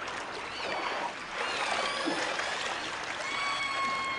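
Killer whale calls: several short calls that glide up and down in pitch over a steady hiss, then one longer call held at a level pitch through the last second.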